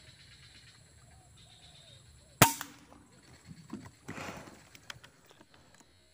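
A single rifle shot fired at a dove, a sharp crack about two and a half seconds in. A second or so later come a short rustle and a few clicks.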